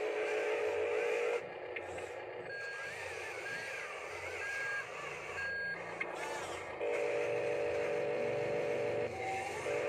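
Huina radio-controlled toy wheel loader running: a steady whir from its small electric motors under the built-in sound module's electronic effects. A steady synthetic tone plays for the first second or so and again for about two seconds near the end, with short higher beeps in between.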